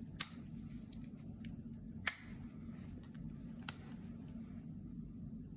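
Victorinox Swiss Army knife being handled, its tools clicking: three sharp clicks spaced a second and a half to two seconds apart, with a few fainter ticks between them.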